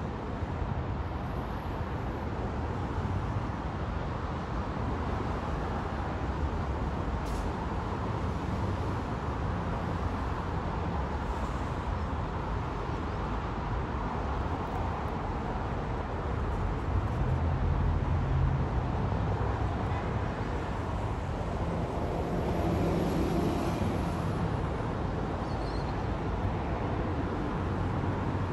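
Steady road traffic noise with a low rumble, growing louder a couple of times in the second half as vehicles pass.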